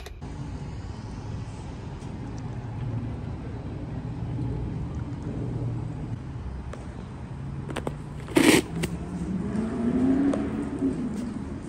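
Low steady rumble of a car and traffic, with one loud sharp clank a little past eight seconds in and a hum that rises and then falls in pitch near the end.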